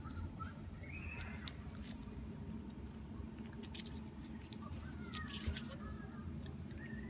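An elderly woman quietly chewing and biting a soft steamed bun, with small mouth sounds and a few sharp clicks from handling its paper wrapper. A faint steady hum runs underneath.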